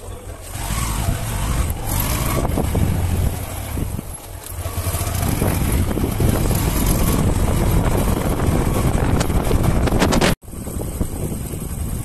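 Motorcycle engine running while the bike rides along, under heavy low wind rumble on the microphone; the sound cuts out suddenly for a moment about ten seconds in.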